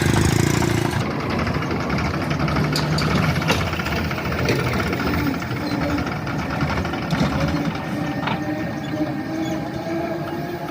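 Heavy diesel engine running steadily, its pitch shifting slightly now and then, with a few sharp knocks over it.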